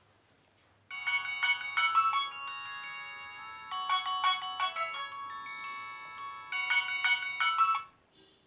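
Nokia mobile phone ringtone: a bright electronic melody of chiming notes, several sounding at once and some held long, starting abruptly about a second in and stopping shortly before the end.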